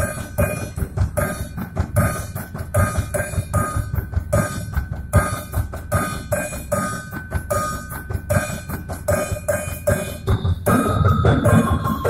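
Small percussion ensemble playing a steady rhythmic groove on snare drum, a small drum kit and hand-held percussion, with dense, regular strikes. The playing grows fuller and louder near the end.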